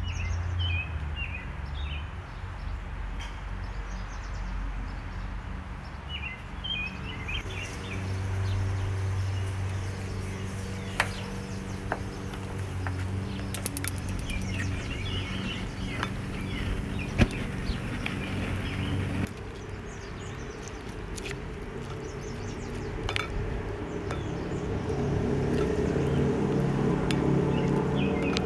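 Outdoor ambience: birds chirping over a steady low hum, with scattered sharp clicks of a plastic spoon against a glass mixing bowl as beaten eggs and vegetables are stirred.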